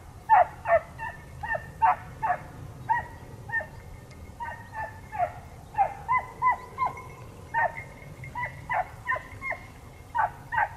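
Hunting dogs on a wild boar hunt barking in short, yelping calls, about one or two a second and irregular. The calls come at two different pitches, which points to more than one dog.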